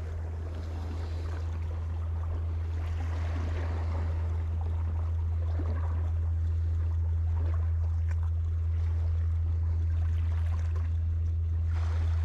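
Sea water washing and lapping against shoreline rocks, over a steady low rumble.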